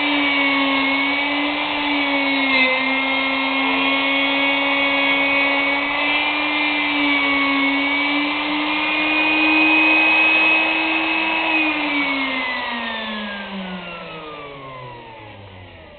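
Router motor of a vintage Stanley door lock mortiser running at high speed with a steady whine, its pitch wavering slightly under load. About three-quarters of the way through it is switched off, and the whine glides down and fades as the motor spins down.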